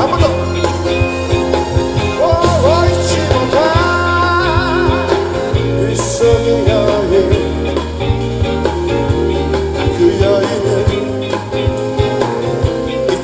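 Live rock band music: a male singer with acoustic guitar, backed by electric guitar, bass guitar and drums.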